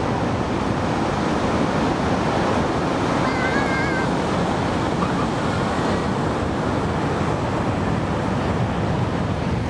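Steady rush of surf breaking on the beach, mixed with wind on the microphone. A short warbling whistle comes about three seconds in.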